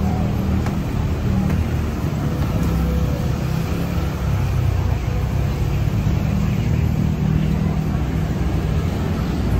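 Steady low rumble of road traffic, with no distinct knocks or breaks.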